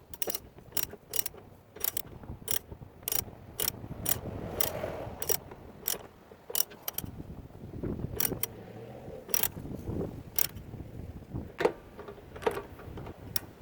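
Ratchet wrench clicking in short, irregular strokes as a new Teflon-taped drain plug is tightened into a water heater tank.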